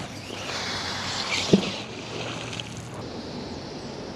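A fishing magnet on a rope cast into a river: a hiss as the rope pays out, then a short plunk as the magnet hits the water about a second and a half in, followed by a steady light wash of water and wind noise.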